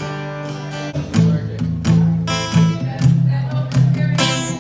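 Acoustic guitar strumming chords: one chord rings for about the first second, then steady rhythmic strums follow.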